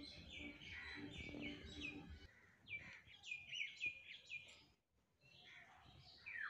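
Faint bird chirps: a run of short calls, each falling in pitch, about two to three a second. They break off briefly about five seconds in, then come back more faintly.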